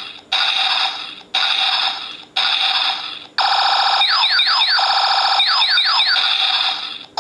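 Electronic sound effects from a cheap bootleg Ultraman Trigger transformation toy's small speaker. It plays three short buzzing tones about a second apart, then a longer run of quick falling zaps, which sound like a Transformers transformation effect.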